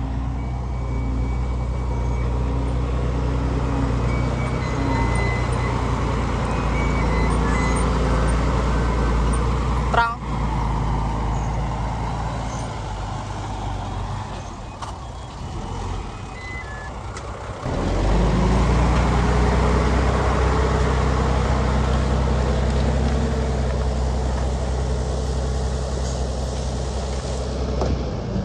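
Heavy diesel construction machinery running steadily. There is a sharp knock about ten seconds in. The engine eases off for a few seconds, then picks up again with a rising pitch just before the last third.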